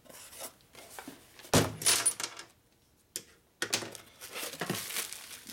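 A small cardboard box and a piston being handled on a workbench: a sharp knock about a second and a half in, a short pause, then scraping and rustling as the piston goes into the box.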